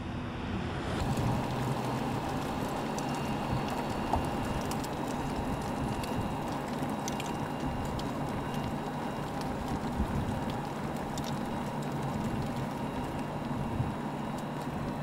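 Lexus LF-Gh concept sedan driving at a steady low speed: a low engine hum under steady tyre and wind noise, with a few faint ticks.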